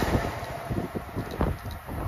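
Amtrak Northeast Regional passenger train's last coach running past and fading as the train moves away, with wheels rumbling on the rails and wind buffeting the microphone.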